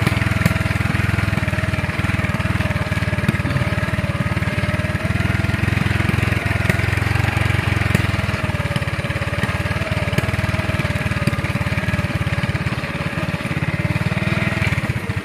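Motorcycle engine running steadily while the bike is ridden.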